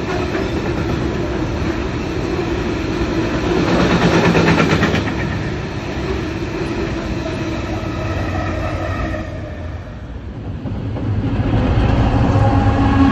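Ballast hopper wagons rolling past on the rails with a steady rumble, louder with a run of wheel clacks about four seconds in. After a dip about ten seconds in, a diesel locomotive's engine hum grows louder as it approaches.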